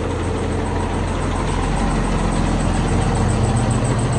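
Diesel engine of an old FNM truck idling steadily through its diffuser exhaust, growing a little louder about halfway through.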